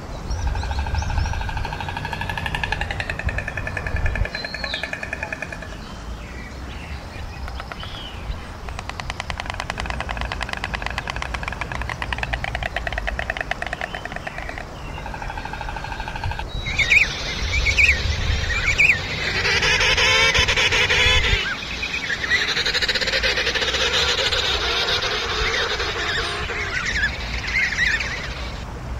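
A steady, rapidly pulsing sound with layered tones. About 17 seconds in, it cuts abruptly to a king penguin colony: many overlapping trumpeting and chirping calls, loudest for a couple of seconds around 20 seconds in.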